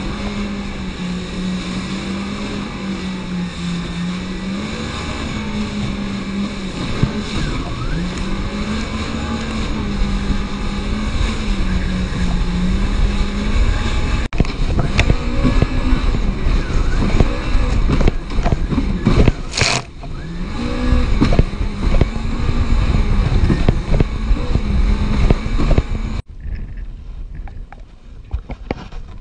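Sea-Doo jet ski engine running at speed, its pitch rising and falling as the throttle is worked, over rushing water and wind. From about halfway the hull knocks repeatedly over chop. Near the end the engine note drops away suddenly, leaving quieter water and wind.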